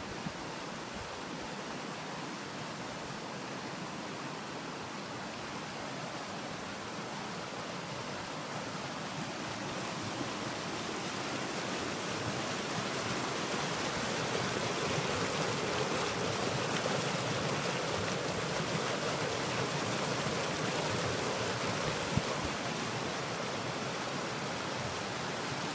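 Shallow mountain river rushing over rocks and through small rapids, a steady wash of water noise that grows louder about halfway through.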